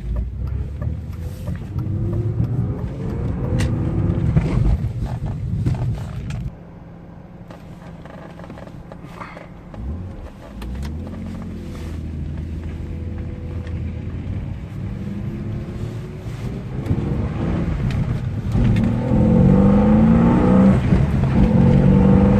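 BMW E36 M3's straight-six engine heard from inside the cabin under acceleration. The revs climb, drop suddenly about six seconds in as it comes off the throttle or shifts, run steadier for a while, then climb hard and louder again near the end.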